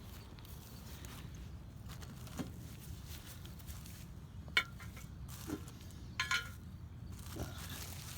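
A few light metallic clinks and knocks, the loudest about halfway through and a quick pair a little later, over a steady low rumble, from a cart loaded with scrap aluminum cans and wire being moved along.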